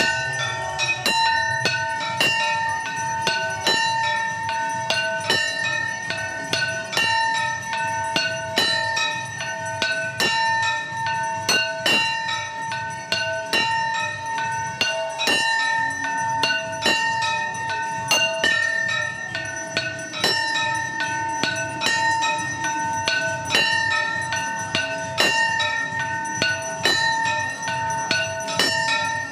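Temple bells rung continuously, struck over and over so that several ringing tones keep sounding without a break.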